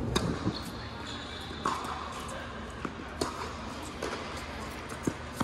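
Tennis rally: a tennis ball is struck by rackets and bounces on the court, giving several sharp hits and bounces in a large indoor hall.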